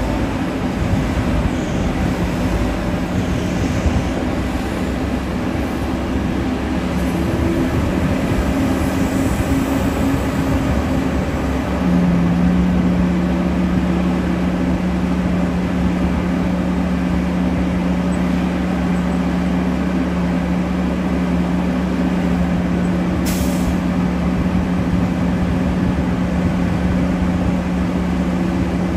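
Big diesel engines of a mining excavator and haul truck working, a loud steady drone with a low hum. About twelve seconds in, a firm steady engine note comes up and holds, and a brief hiss sounds about two-thirds of the way through.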